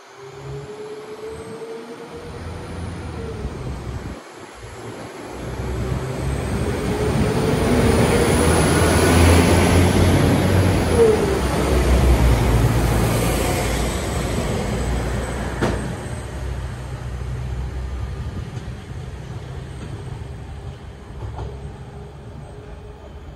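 A train running past: a low rumble that builds over about ten seconds to a peak and then slowly fades, with a high whine that rises and then falls in pitch. A single sharp knock comes about two-thirds of the way through.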